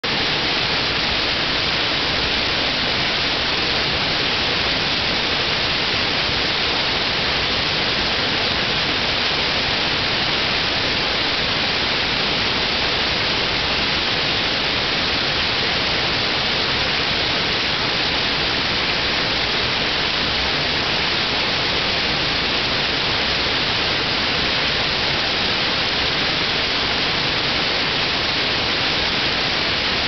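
Waterfall: water pouring down in a steady rush, unchanging throughout.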